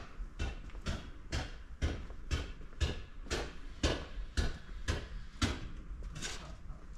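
Footsteps of a person walking at a steady pace, about two steps a second, stopping near the end.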